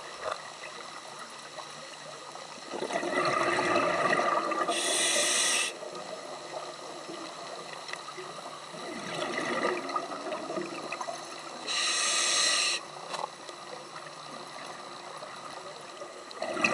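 Scuba diver breathing through a regulator: a stretch of exhaled bubbles, then a sharp inhaled hiss about a second long, twice over.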